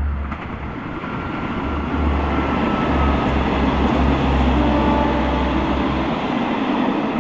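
A train passing on the railway: a steady rolling rumble that swells, with a few faint high-pitched tones from the wheels.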